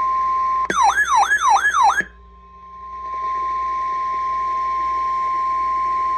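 The steady single-pitch Emergency Alert System attention tone of a NOAA Weather Radio alert. Under a second in, a loud siren-like wail of quick falling sweeps, about three a second, cuts in over it for over a second. The tone then fades back in and holds steady.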